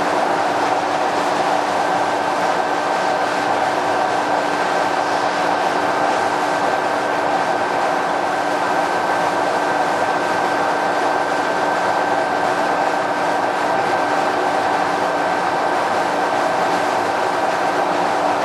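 DoAll 2608NC vertical band plate saw running steadily, its blade and drive making a continuous machine noise with a low hum. A higher steady whine joins about two seconds in.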